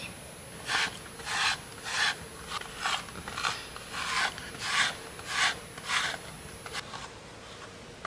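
Pet grooming brush drawn through a small dog's curly fur: about ten short brushing swishes at an even pace, stopping about seven seconds in.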